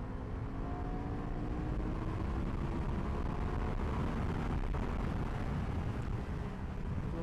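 SRT 800X motorcycle engine pulling under acceleration, its note rising slowly over the first few seconds, under a heavy rush of riding wind.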